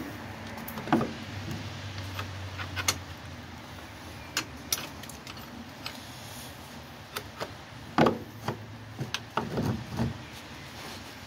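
Scattered metallic clinks and knocks of hand tools and parts being handled during car repair work, the loudest knock about eight seconds in, with a low hum for a couple of seconds near the start.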